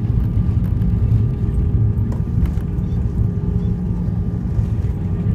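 Cabin noise inside a Boeing airliner rolling on the ground: a steady low rumble of the jet engines and wheels, with a steady whine over it.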